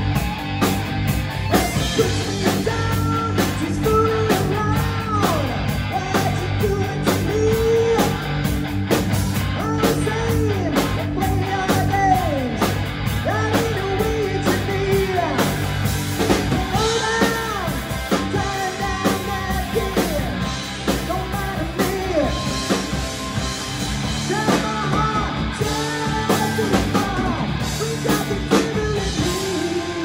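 Live rock band: a male voice singing over electric guitar played through Marshall amplifiers, bass and a drum kit.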